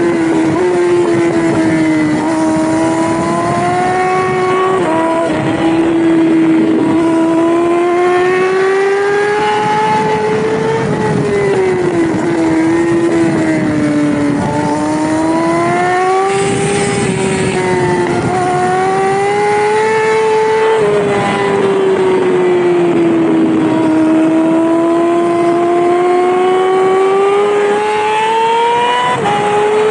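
Yamaha R6 600cc inline-four racing motorcycle engine at racing speed. Its note climbs and falls with the throttle through the corners and jumps suddenly at the gear changes, over steady wind rush.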